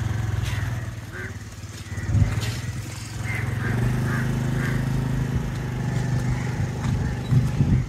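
A small engine running steadily. It dips about a second in and comes back up about three and a half seconds in, with two sharp knocks, one about two seconds in and one near the end.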